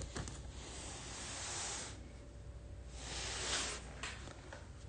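Quiet handling as a trading card is set into a clear acrylic display stand: a soft click or two, then faint hissing that swells twice.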